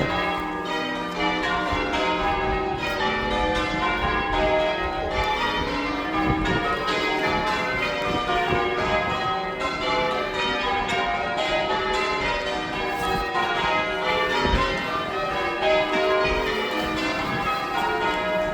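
Chichester Cathedral's bells ringing continuously, many bells struck one after another in quick succession so that their tones overlap.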